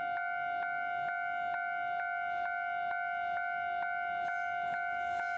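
Railway level-crossing warning bell ringing, a steady ringing tone re-struck about twice a second. The hiss of an approaching train begins to rise in the last second or so.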